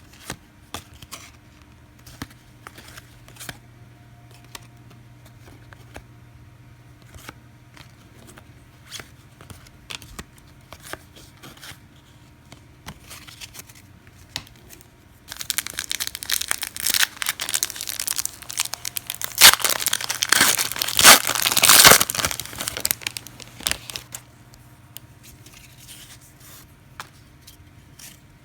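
A trading-card pack wrapper being torn open and crinkled for about eight seconds, most loudly near the middle of that stretch. Before it, for about fifteen seconds, there are only scattered small ticks.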